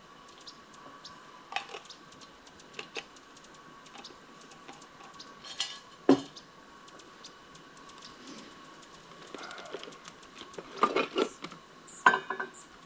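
Camp cookware and utensils clinking and knocking on a picnic table while coffee is being made: scattered light clicks, a sharp knock about six seconds in, and a flurry of knocks and clatter near the end.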